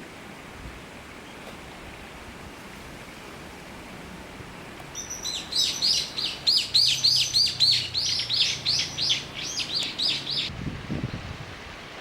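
Common kingfisher calling: a rapid series of shrill, high-pitched notes, about three or four a second, lasting about five seconds from around halfway through, over a steady hiss.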